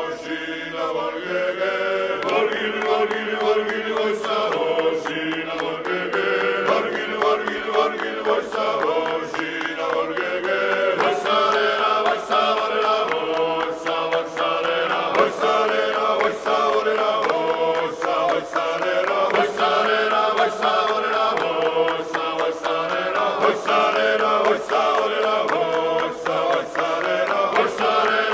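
Background music of chanting voices singing slow, long-held notes over a steady drone.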